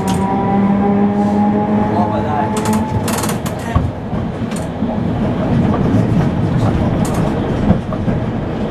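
Electric tram running along the rails: its motors whine with a pitch that falls slightly and fades about three seconds in, leaving the rumble and clatter of the wheels on the track with scattered sharp clicks from the driver's controller.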